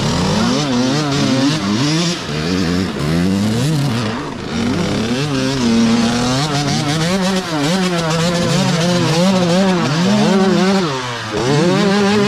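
Small youth dirt bike engines revving over and over, the pitch rising and falling every second or so. The riders are working the throttle while the bikes are pushed up a steep dirt climb.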